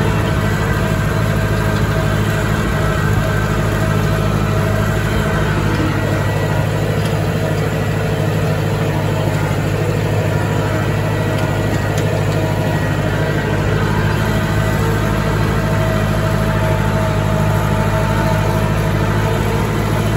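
Massey Ferguson diesel tractor engine running steadily at an even speed, loud and unbroken, with no change in pitch.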